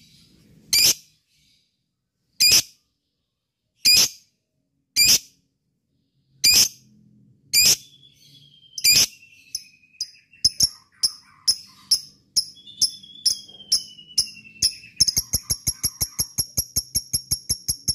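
Lovebird calling: shrill single chirps about once every one and a half seconds, quickening after about ten seconds into a fast run of notes. From about fifteen seconds they become a rapid, even chatter, the long 'ngekek' trill wanted from fighter lovebirds.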